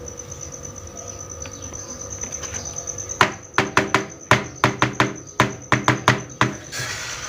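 Small plastic toy kitchen pieces knocking and clicking together as they are handled: about a dozen sharp taps, three or four a second, starting about three seconds in, over a faint steady high-pitched tone.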